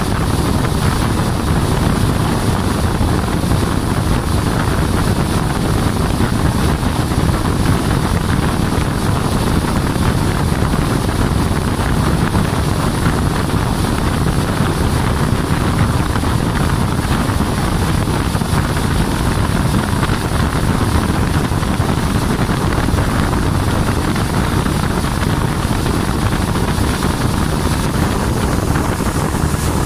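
Outboard motor of a river boat running steadily underway, with wind noise on the microphone and water rushing past the hull.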